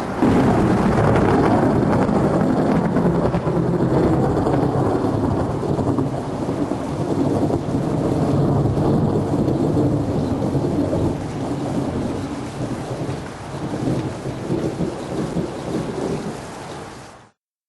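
Long, continuous rumbling thunder with rain, cutting off abruptly near the end.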